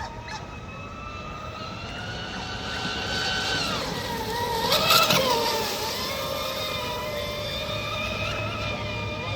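Electric RC deep-V racing boats running at speed, their motors making several high-pitched whines at different pitches. The whines dip in pitch about three and a half seconds in and are loudest around five seconds in as a boat passes close.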